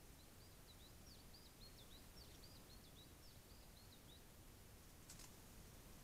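A small songbird singing faintly: a rapid string of short, high chirping notes, about four a second, lasting about four seconds. About five seconds in there is a single short, sharp click.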